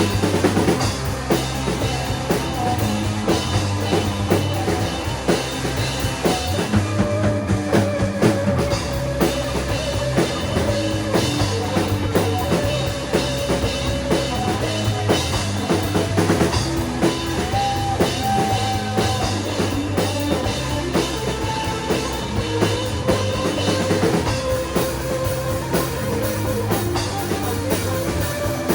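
Shoegaze rock band recording: a full drum kit keeps a steady beat with a driving bass drum under bass and guitar, with long held melody notes on top. The deepest bass drops away briefly about seven seconds in.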